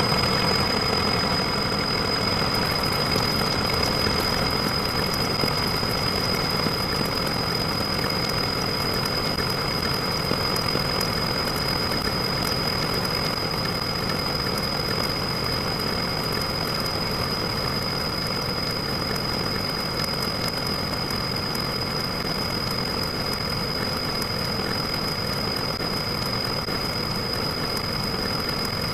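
A steady engine-like running noise with a constant high whine on top, holding level with no breaks or changes.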